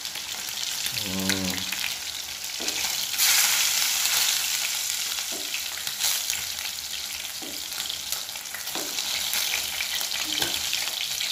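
Chicken pieces frying in hot oil in a pan: a dense, steady sizzle and crackle that surges louder about three seconds in. A few light clicks of a wire strainer and tongs against the pan come as the cooked pieces are lifted out.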